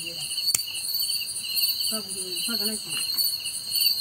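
Night chorus of crickets and other insects, a steady pulsing chirr. One sharp click comes about half a second in.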